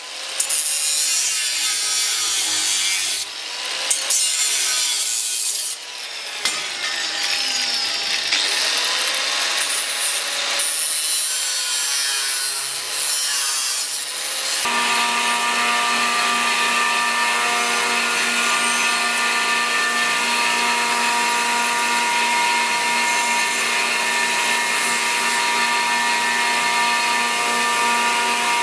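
Angle grinder with a thin cutting disc cutting sheet steel held in a vise, its pitch dipping and recovering as the disc bites. About halfway through it gives way to a belt grinder running steadily while a small steel piece is ground against the belt.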